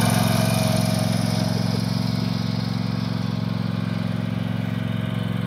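Husqvarna riding lawn tractor's engine running steadily as it drives slowly across grass, growing a little fainter over the first couple of seconds as it moves away.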